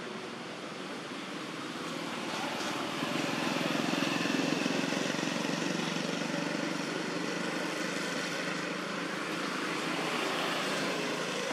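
Distant engine drone, swelling to its loudest about four seconds in and then holding steady.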